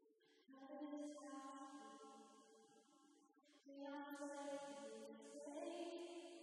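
Soft worship singing: voices holding slow, sustained notes. The singing starts about half a second in and breaks off briefly a little past halfway before it resumes.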